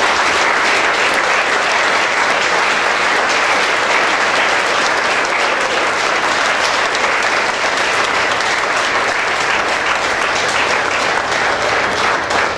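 Church congregation applauding: steady, dense clapping that starts to thin out at the very end.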